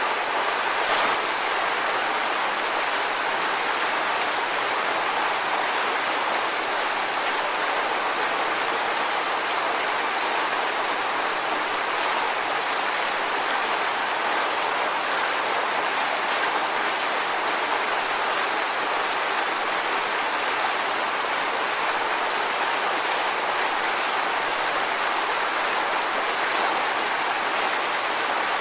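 Waterfall rushing, an even, unbroken wash of falling water.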